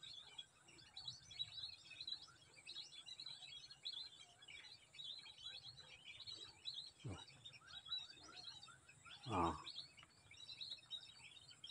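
Faint, dense high-pitched chirping of birds, with two short lower calls falling in pitch about seven and nine and a half seconds in.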